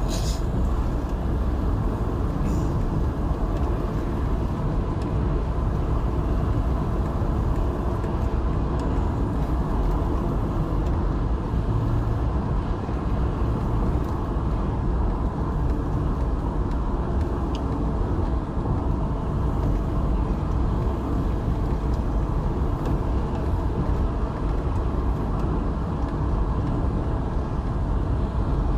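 Steady low rumble of a car driving at road speed, heard from inside the cabin: engine and tyre-on-road noise.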